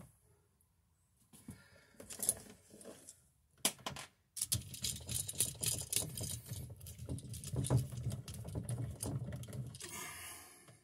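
Scratchy clicking and rubbing of a screwdriver turning the terminal screw on a GFCI receptacle, clamping the black load wire under its pressure plate, after a few faint handling clicks; the continuous scratching starts about four seconds in.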